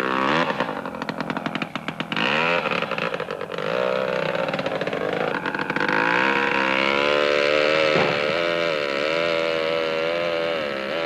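Chainsaw starting up and sputtering at low speed for a few seconds, then revving up and running with a wavering pitch while cutting a fallen tree.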